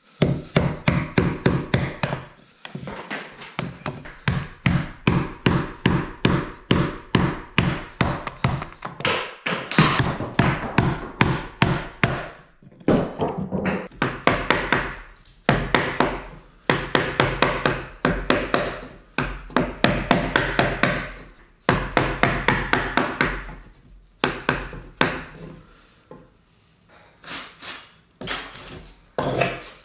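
A mallet striking a chisel into a log, cutting out a notch by hand. The quick wooden strikes come about five a second, in runs of a few seconds with short breaks between them.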